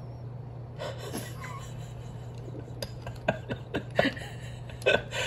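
Scattered light clicks and taps with a little soft rustling over a steady low hum.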